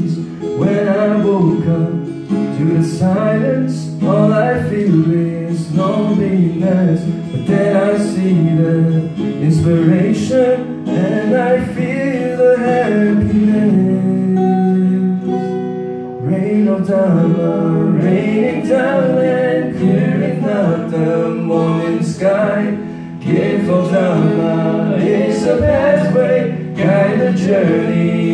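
Live acoustic guitar accompanying two male voices singing a song, with one long held note about halfway through.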